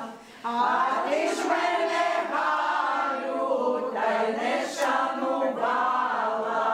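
A group of women singing a song together, no instruments heard, in held phrases of about a second each; the singing picks up again about half a second in after a brief drop.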